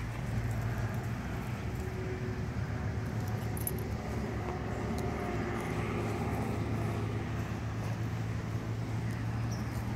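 A steady low rumble, with a border collie puppy's paws digging and scraping in sand over it.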